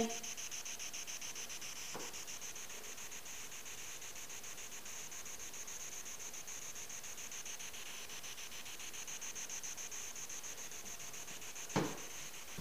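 A steady hiss of static with a fast, even flutter, and a faint tap about two seconds in and a sharper knock near the end.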